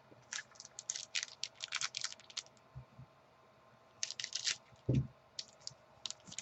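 Football trading cards being handled and flipped through: quick runs of light clicks and snaps as the cards are moved, with a soft thump about five seconds in.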